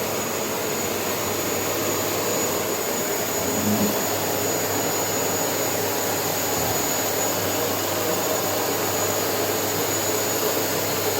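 Vacuum cleaner running steadily: an even rushing motor noise with a thin, steady high whine.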